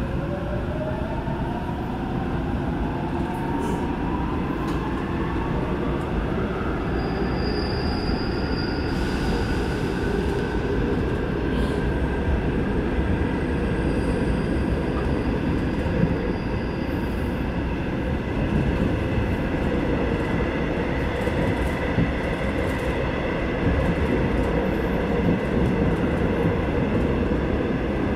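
Seoul Subway Line 8 train running through a tunnel, heard from inside the car: a whine of several tones climbs in pitch over the first six seconds as the train picks up speed, then gives way to steady wheel-on-rail rumble with a constant high whine.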